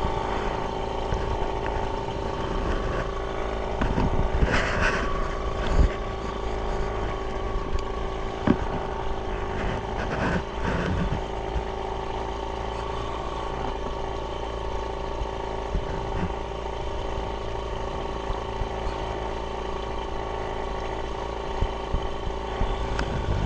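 Small boat engine running steadily at an even speed, with a few brief knocks in the first half.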